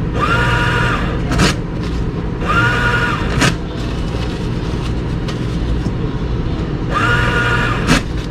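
A steady low engine rumble throughout, with three short pitched whines, each ending in a sharp click.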